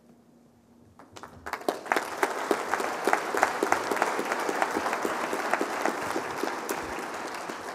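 Audience applauding in a large hall. The clapping starts about a second in, quickly fills out to a steady level and begins to die away near the end.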